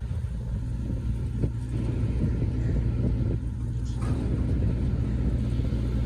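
Pickup truck on the move, heard from its open cargo bed: a steady low rumble of engine and road.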